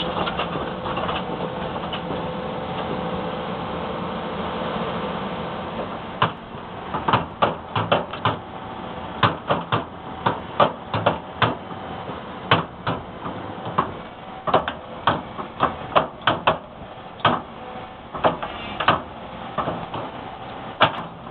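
Volvo EC360 tracked excavator's diesel engine running steadily; from about six seconds in, irregular sharp clanks come from its worn undercarriage as the tracks move during a steering test.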